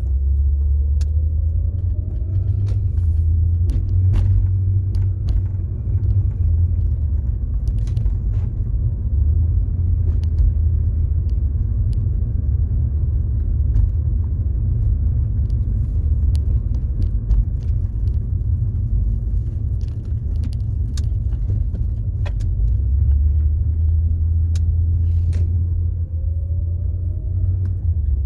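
2004 Acura TL being driven: steady engine and road rumble, with the engine pitch rising as it speeds up about a second in and again near the end. Scattered light clicks and rattles sit over the rumble.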